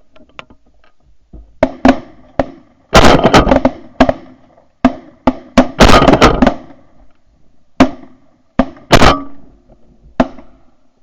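A volley of shotgun fire from several hunters shooting at a flock of geese. There are a dozen or more loud shots, some overlapping in quick clusters about three and six seconds in, then single shots spaced out toward the end.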